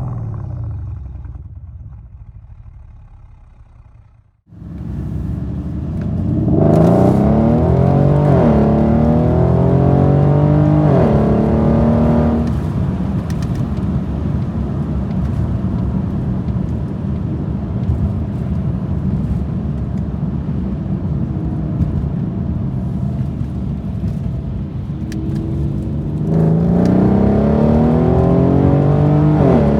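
Exhaust of a Mercedes CLS500's M278 4.7-litre twin-turbo V8 with downpipes and resonator delete. The engine sound fades over the first few seconds and comes back abruptly, is revved up and down several times, settles to a steady idle, and is revved again near the end.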